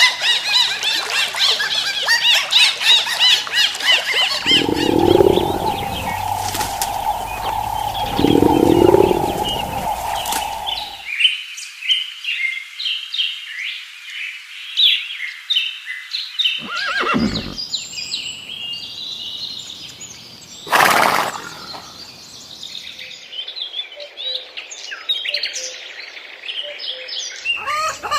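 A run of different animal calls: dense high-pitched chirping at first, then two louder, lower calls about five and nine seconds in over a steady tone, then more scattered bird-like chirping with a sharp burst a little after twenty seconds.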